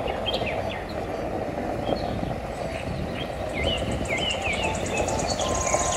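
Box truck's diesel engine running as it drives, a steady rumble, with birds chirping throughout and a high, rapid trill from about halfway.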